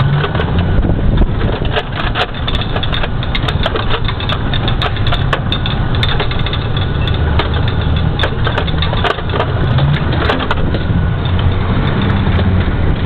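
MaxxPro MRAP running down the road with a steady diesel drone, heard from the open gunner's turret. Constant irregular rattling and knocking comes from the turret and its mounted machine gun.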